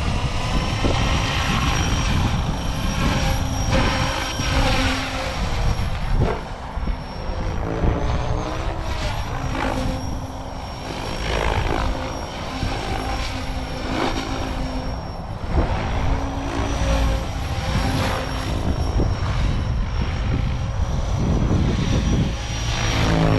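Electric RC helicopter (SAB Goblin RAW 580 with an Xnova brushless motor on 6S) in flight, its motor whining steadily at head speed while the rotor-blade whoosh rises and falls as it manoeuvres. Wind rumbles on the microphone underneath.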